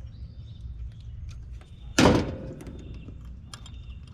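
Hands working a compressor run capacitor loose in an air-conditioner package unit: small clicks and taps, then one loud knock with a short ring about two seconds in, over a steady low rumble.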